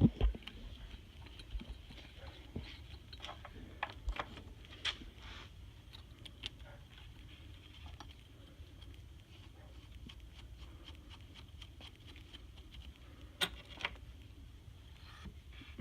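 Light, scattered clicks and taps of small metal parts being handled as bolts are threaded into turbocharger brackets, with a thump at the start and two sharp clicks near the end.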